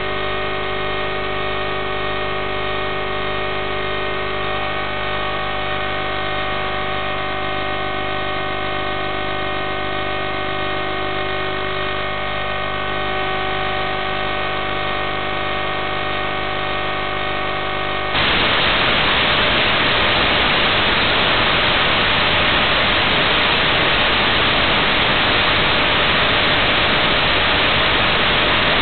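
Audio of an analog FPV video link: a steady electronic buzz made of many even tones. About eighteen seconds in it switches abruptly to louder, even white-noise static, as the video signal is lost and the receiver picks up only noise.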